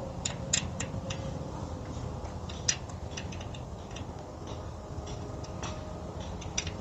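Scattered, irregular light clicks of a tool working the bolts on the side of an e-bike's handlebar stem as they are tightened, over a faint steady hum.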